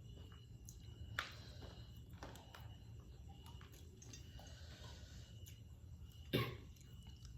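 Quiet eating noises: a few short clicks or crunches over a low steady hum, the loudest and sharpest about six seconds in.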